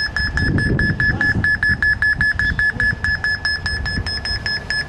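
Smartphone electromagnetic-field detector app beeping rapidly at one high pitch, about seven beeps a second. Ghost hunters take this beeping for the sign of a presence.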